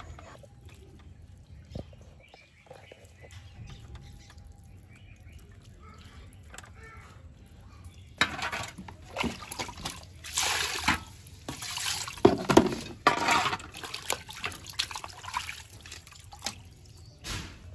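Pork intestines being washed by hand in a metal pan of water. The water splashes and sloshes in irregular bursts through the second half, after a quieter stretch of small handling noises.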